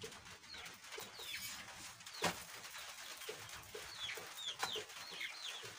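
Young chickens peeping repeatedly, many short high cheeps that fall in pitch, with a single sharp knock about two seconds in.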